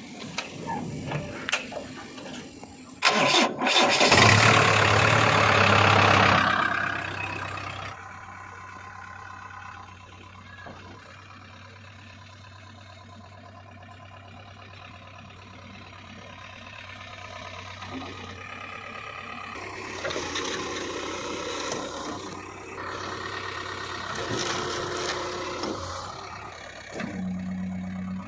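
Diesel engine cranked and started about three seconds in, running loud for a few seconds before settling to a steady idle. It is revved up twice near the end.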